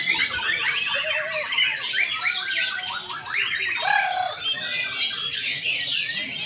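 Many caged songbirds singing over one another, white-rumped shamas among them: a dense run of chirps and quick whistled phrases, with a lower arched whistle about four seconds in.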